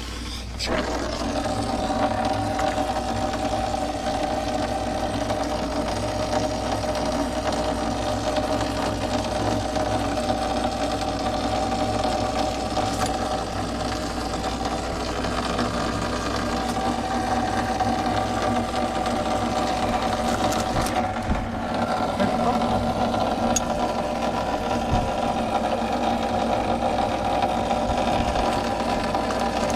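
A pipe-thawing machine switches on about half a second in and runs with a steady, even hum while it thaws a frozen water pipe.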